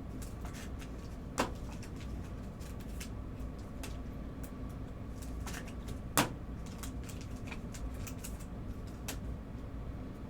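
Trading cards and card holders being handled on a table: light scattered ticks and rustles, with two sharper clicks, one about a second and a half in and one about six seconds in, over a steady low hum.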